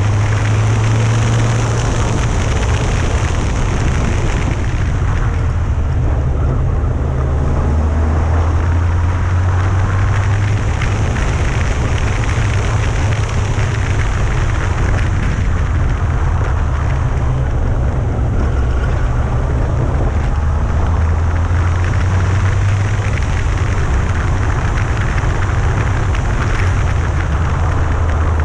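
Yamaha FJR1300's inline-four engine running steadily with the motorcycle under way, a low drone whose pitch shifts slightly now and then, mixed with wind rush on the action camera's microphone.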